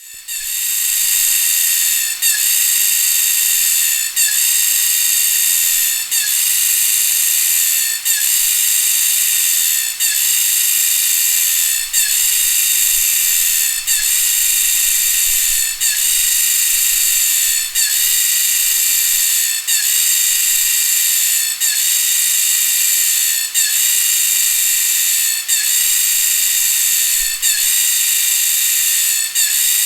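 Rainforest insect chorus: a dense, high-pitched buzzing and shrilling of many insects at once, steady, with a brief dip about every two seconds.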